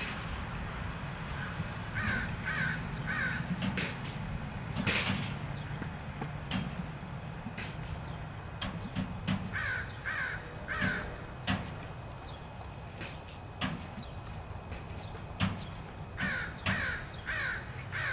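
A crow cawing in sets of three, three times over, with scattered light knocks and taps in between.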